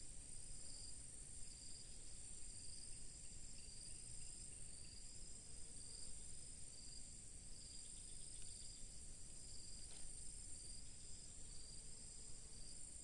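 Chorus of insects at a swamp: a continuous high-pitched shrilling with a second, pulsing trill beneath it, over a low, steady rumble.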